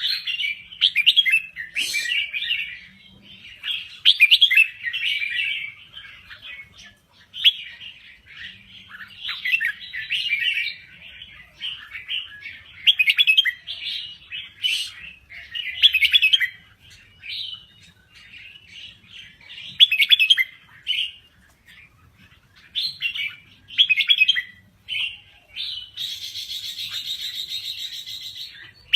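Red-whiskered bulbul singing: short, bubbly, warbling phrases repeated every second or so. Near the end a steady, higher buzzing sound runs for about three seconds.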